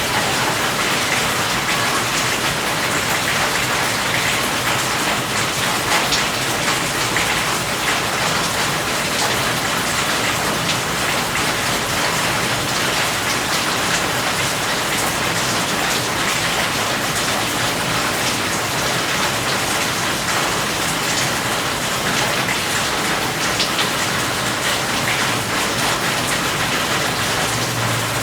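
Steady, heavy rain falling, a dense even hiss with many fine drop patters throughout.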